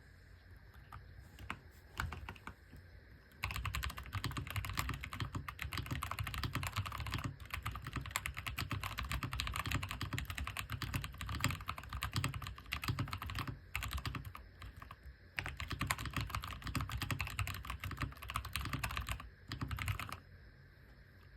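Typing on an AJAZZ AK680 mechanical keyboard with stock brown tactile switches. A few scattered keystrokes come first, then a few seconds in a fast, continuous run of key clicks, a short break, another fast run, and a few short bursts near the end.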